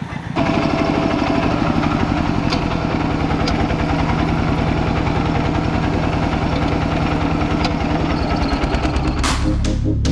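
Single-cylinder diesel engine of a two-wheel walking tractor running steadily under way, a fast even chugging beat. Electronic music with heavy beats cuts in near the end.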